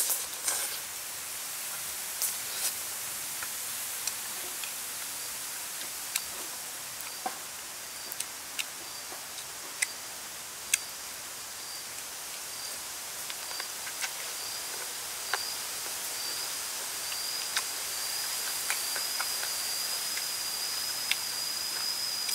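Close eating sounds, scattered sharp clicks of chewing and of a spoon against a small sauce bowl, over steady forest ambience. A high, steady insect drone runs under it and grows louder over the second half.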